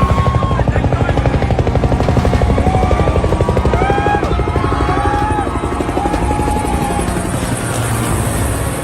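Military helicopter flying low overhead, its rotor blades beating in a fast, steady, loud chop that eases off slightly toward the end.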